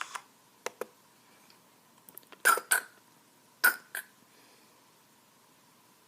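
Elevator mechanism clicking and clunking after a steady hum cuts off: a few light clicks, then two loud double clacks about a second apart.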